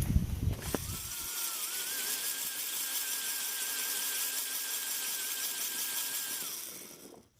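Small electric motor running steadily, a thin slightly wavering whine over an airy hiss, starting after a click about a second in and fading out near the end.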